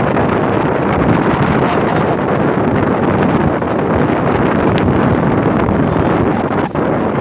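Steady wind noise rushing across the microphone, with a brief high click a little under five seconds in.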